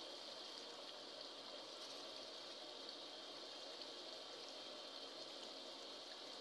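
Chicken frying in oil and masala in an aluminium karahi: a faint, steady sizzle and bubble of hot oil.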